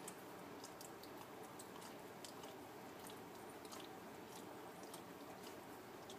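Faint, irregular wet clicking and smacking of newborn puppies suckling, a few clicks a second, over a low steady hiss.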